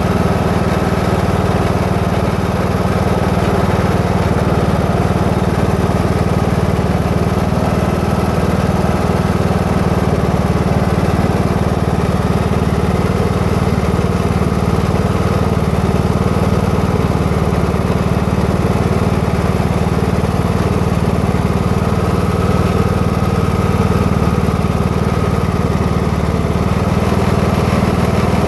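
Husqvarna TS 242 lawn tractor running steadily at an unchanging speed, with a faint steady high tone over the engine sound. The owner hears a grinding sound from the new tractor.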